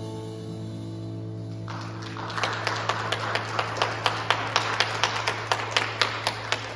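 The worship band's last chord, piano with electric bass, rings out, then applause breaks out about two seconds in, with one close clapper keeping an even beat of about four claps a second over it while a low bass note still sounds underneath.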